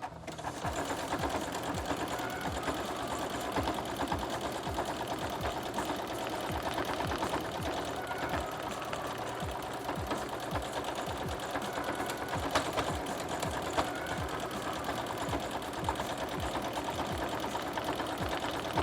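Electric sewing machine running steadily, stitching a buttonhole with its automatic buttonhole foot through the layered denim of a jeans fly. The needle's fast, even rhythm starts at once and stops near the end, with a couple of sharper clicks partway through.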